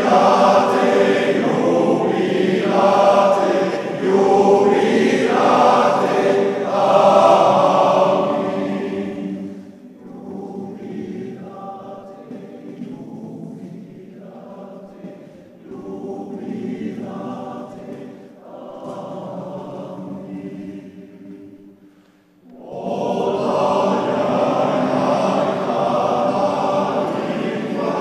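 Male voice choir singing in a reverberant church: full and loud at first, dropping to a soft passage after about ten seconds, then swelling back to full voice a few seconds before the end.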